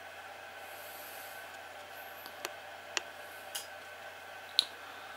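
Cooling fan of a Phottix Indra 500 TTL studio monolight running with a steady whir and a constant high tone. It has cut on after a single test flash, which the owner thinks needs a firmware fix. A few sharp clicks sound over it in the second half, the loudest near the end.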